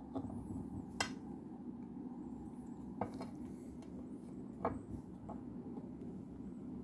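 A few faint, isolated clicks, about three, from stone geode halves being handled over a plastic box, over a low steady background hum.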